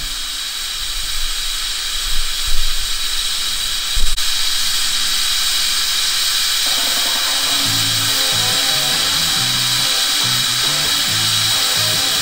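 Steam hissing steadily out of a Fissler pressure cooker's release valve as the pressure is let down after cooking, with a couple of short knocks about two and four seconds in.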